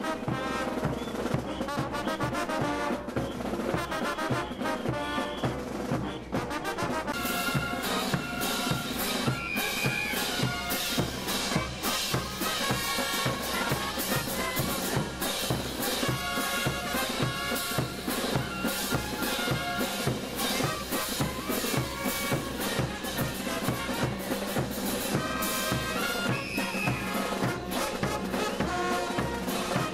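Bolivian brass band playing a morenada: trumpets and trombones over a steady beat of drums and cymbals. The percussion comes in stronger about seven seconds in.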